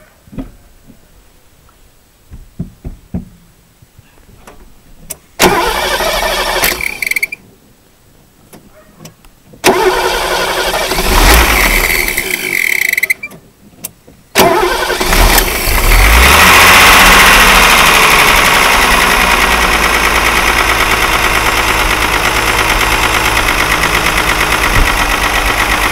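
Mercedes-Benz W126 engine, running on LPG, cranked by its starter three times: two tries that die away, then it catches on the third, revs up and settles into a steady idle. The owner has just said the gas reducer's second-stage valve is not closing and the engine is running rich.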